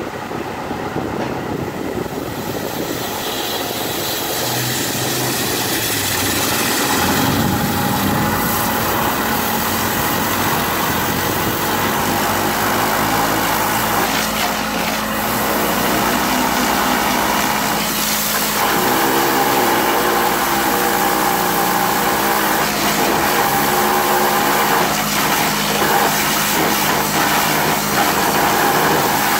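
High-pressure sewer jetter running, its pump driving water through a nozzle inside a length of pipe. A continuous noise builds over the first several seconds, then holds steady with a constant low hum from about eight seconds in.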